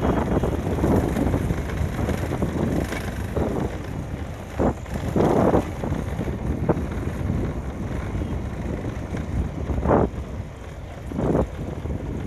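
Wind buffeting the microphone on a moving Yamaha FZ motorcycle: a steady low rumble of engine and road with irregular louder gusts.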